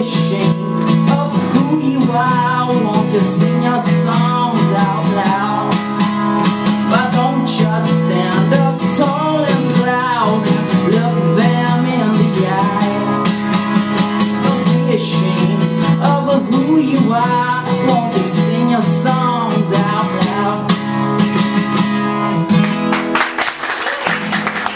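A steel-string acoustic guitar strummed steadily under a man's singing voice. The song stops about a second before the end and applause starts.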